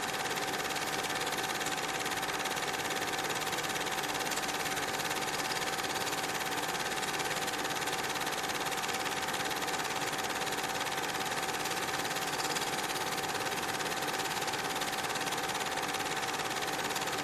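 Steady hiss with a constant thin whine running under it, level and unchanging throughout, with no distinct events.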